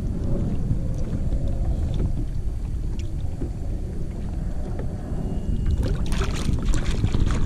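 Wind rumbling on the microphone over water lapping at the side of a kayak; about six seconds in, a burst of water splashing as the released redfish kicks free of the hands and swims off.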